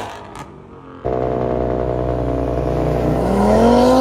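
Car engines as cars pull away hard. The first fades as it drives off. About a second in, another engine starts suddenly, running at a steady pitch, then revs up with rising pitch near the end as it accelerates.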